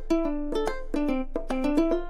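Background music: a light plucked-string tune of quick picked notes.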